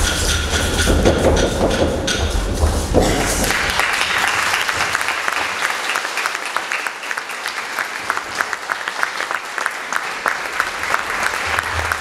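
Stamping thumps on a wooden stage under a high steady tone for the first three seconds or so, then audience applause from about three and a half seconds in, a dense even clapping that carries on.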